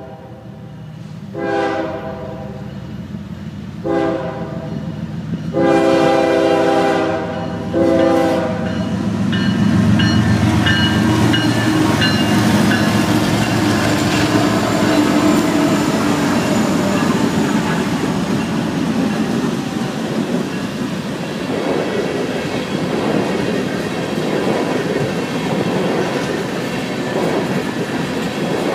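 Norfolk Southern diesel locomotive blowing its multi-note air horn in several blasts for a grade crossing, then its engine rumbling past close by. The empty coal hopper cars follow, rolling by with a steady clickety-clack.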